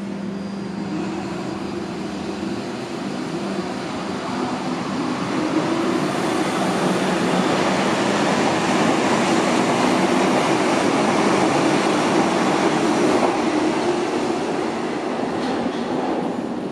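Berlin U-Bahn F-series three-phase AC (Drehstrom) train pulling out of the station and accelerating past. A steady low hum in the first couple of seconds gives way to motor and wheel noise that builds, is loudest as the cars go by, and eases as the train leaves the platform.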